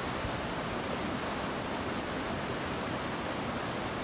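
Shallow mountain creek running over rocks and through a small cascade: a steady rush of water.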